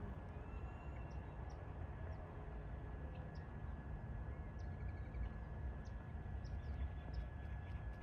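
Outdoor background: a steady low rumble with faint, scattered short high chirps of small birds.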